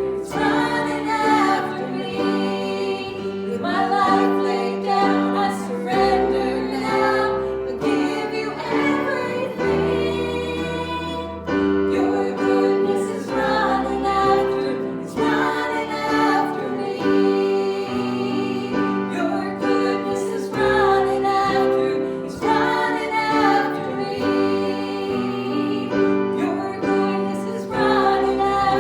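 Singing voices with instrumental accompaniment: a worship song, with sustained bass notes changing every couple of seconds under the melody.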